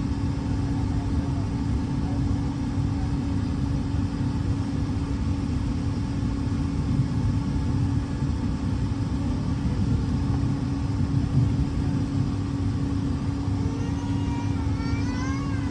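Steady cabin noise of a jet airliner taxiing: a constant low rumble from the engines and airflow with a steady hum. Near the end a brief wavering high-pitched sound rises and falls over it.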